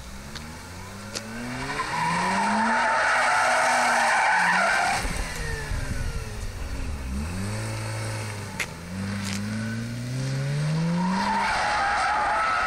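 Mazda RX-8 being drifted: its twin-rotor Wankel rotary engine revs up in rising pitch while the tyres squeal on asphalt. The revs drop in the middle, then climb again near the end with a second long tyre squeal.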